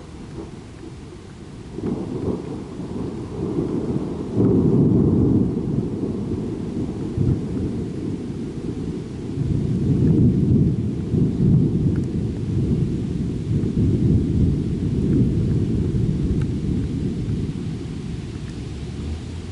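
Thunder rolling in long, deep rumbles over steady rain. It builds about two seconds in, becomes suddenly louder about four seconds in, swells again in the middle and slowly dies away.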